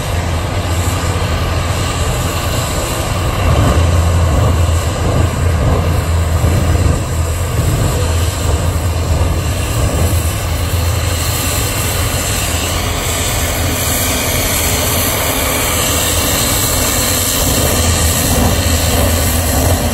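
Jet engine mounted in a pickup truck's bed running loud and steady: a deep low rumble under a wide hiss, swelling a little about four seconds in and again near the end.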